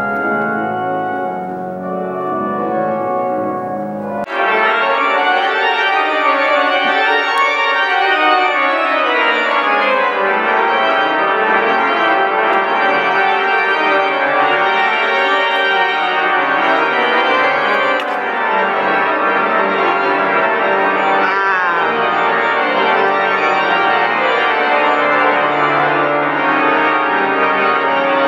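Pipe organ playing full sustained chords. About four seconds in, the deep bass drops out and a louder, brighter registration takes over.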